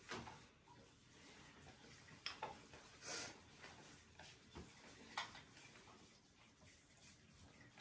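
Faint, scattered light taps and clicks from hands filling and pleating momo dumplings over steel bowls and a tray of wrappers, with one short rustle about three seconds in.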